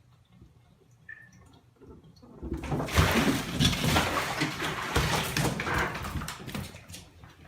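Water splashing and rushing, loud for about four seconds, starting about two and a half seconds in and dying down near the end.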